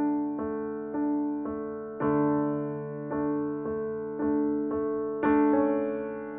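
Background piano music: single notes struck about twice a second, each fading away, with a slightly louder, brighter note about five seconds in.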